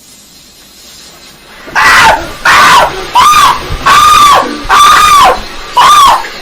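A man screaming, high-pitched and very loud, over and over in panic: about six yells in quick succession that start a little under two seconds in.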